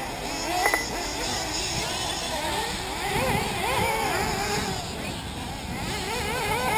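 Several 1/8-scale nitro buggies' small two-stroke glow engines buzzing, their overlapping pitches swooping up and down as they rev and lift off around the track. A short high beep sounds about a second in.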